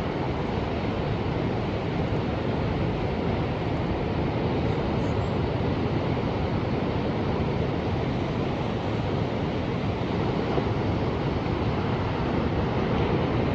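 Ocean surf: a steady rush of waves breaking and washing, swelling slightly near the end.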